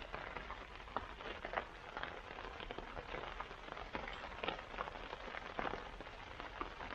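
Rain falling, with irregular drops ticking and pattering against nearby surfaces.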